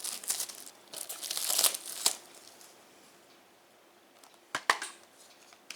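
Plastic shrink-wrap on a Blu-ray case crinkling and tearing as it is pulled off, for about the first two seconds. A few sharp clicks follow near the end.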